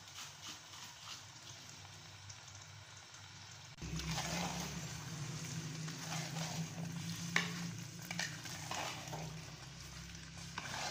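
A spoon stirring a thick potato and tomato masala in a pot, scraping and sizzling, starting about four seconds in. A steady low hum comes in at the same moment.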